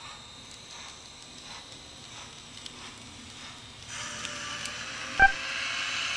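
Recorded sound of a D51 steam locomotive played through a tiny Bluetooth speaker inside a model coach: faint, regular chuffs, then a louder steady steam hiss from about four seconds in. About five seconds in there is a short, sharp tonal blip, the loudest moment.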